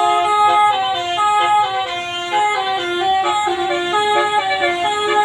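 Bus's basuri musical air horn ('telolet') playing a melody: a run of notes stepping up and down, several pitches sounding together, going on without a break.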